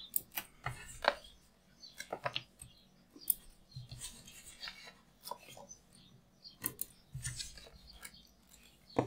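Small irregular clicks, taps and paper crinkles of hands handling card and a sheet of foam adhesive dots, peeling the dots off and pressing them onto small die-cut paper pieces.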